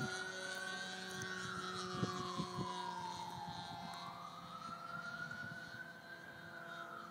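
Great Planes Revolver 59-inch RC airplane flying, its motor's whine swinging up and down in pitch twice as the plane passes and manoeuvres.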